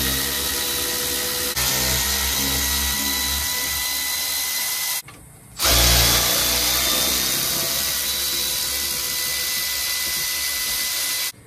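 Cordless power drill running with a steady whine as it spins the intake manifold nuts off. It stops for about half a second around five seconds in, then runs again for about six seconds before cutting off.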